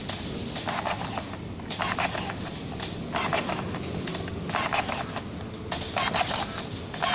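Battery-powered rebar tying tool cycling at crossings of a rebar mesh: about five short whirring, clicking tie cycles, roughly one every second and a half.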